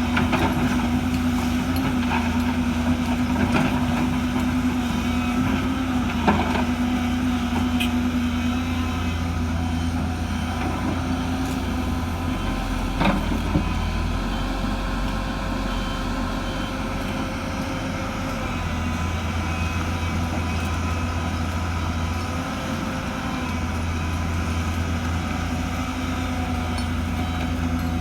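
Heavy diesel machinery at an excavator loading sand into dump trucks, its engine running steadily, with a few sharp knocks along the way.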